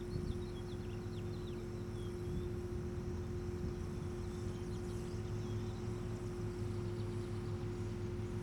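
Faint bird chirps in short clusters over a steady low hum and rumble.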